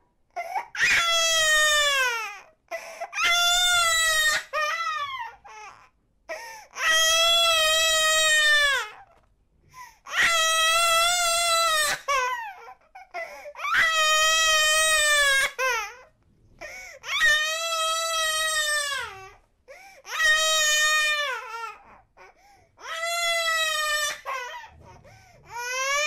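Eight-month-old baby crying hard: about eight long wails in a row, each falling in pitch at its end, separated by short pauses.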